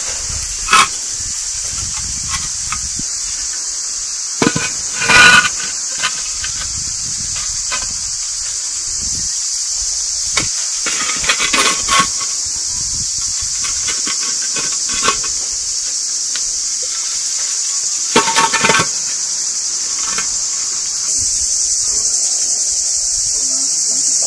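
A steady high-pitched insect chorus, with a few scraping knocks of concrete blocks being set down on one another. The loudest knock comes about five seconds in, with others near twelve and eighteen seconds.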